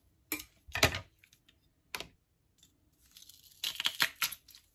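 Metal garlic press clicking and clacking in the hand as garlic is pressed over a jar: a few sharp separate clicks, then a short, dense crunchy, scraping rattle about three and a half seconds in.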